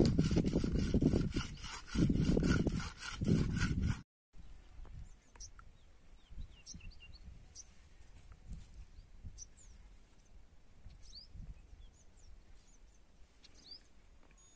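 Loud, rough rumbling noise in gusts for about four seconds, then a sudden cut to a quiet field where only faint, scattered bird chirps are heard.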